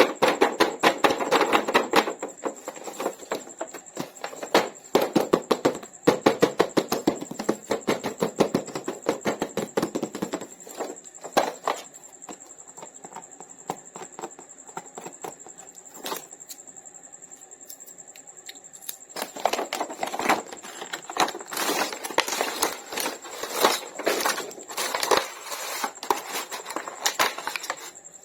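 Plastic toy packaging being handled and opened: rapid crackling and clicking, busiest at the start and again in the second half, sparser for a few seconds in the middle, over a faint steady high whine.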